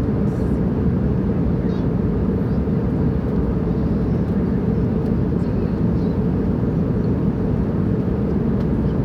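Airplane in flight: a steady, unchanging low rumble of engines and airflow.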